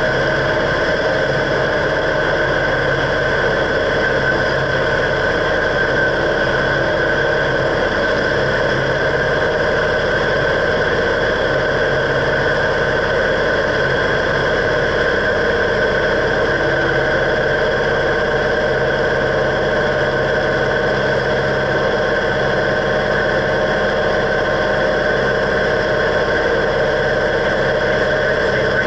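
Cessna 172's piston engine and propeller running steadily in cruise flight, heard inside the cabin as an even drone.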